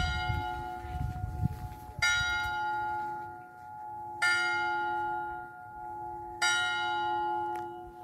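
A single church bell tolling slowly, four strokes a little over two seconds apart, each ringing on in a long humming decay that carries through to the next stroke.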